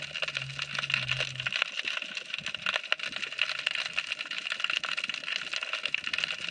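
Underwater crackle of many tiny rapid clicks, the sound of snapping shrimp around a pier piling. A low steady hum is heard underneath and stops about a second and a half in.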